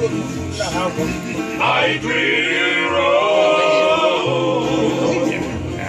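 A group of men singing a song together, in the style of Tongan kava-club singing. Several voices sing at once over low held notes that change every second or so.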